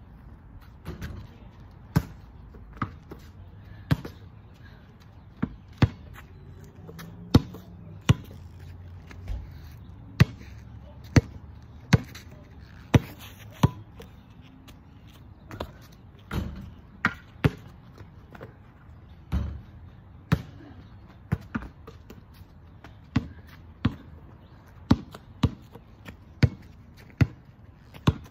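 A basketball bouncing on an asphalt driveway: a long string of sharp thuds at uneven spacing, often about a second apart, some in quick pairs.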